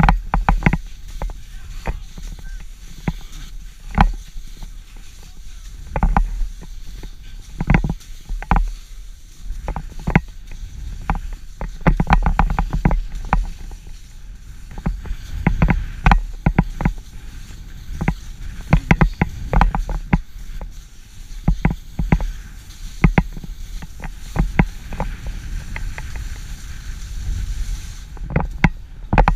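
Skis sliding and turning on packed snow during a downhill run: irregular scraping clatter and sharp knocks over a low wind rumble on the camera.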